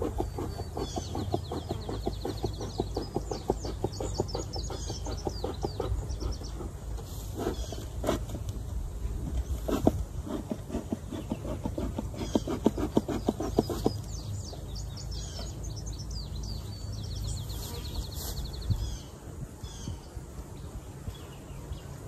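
Songbirds singing outdoors in fast repeated trills, once near the start and again near the end, over a steady low hum. Through the first two thirds runs a dense patter of rapid ticking or scratching, with a few sharp knocks around the middle.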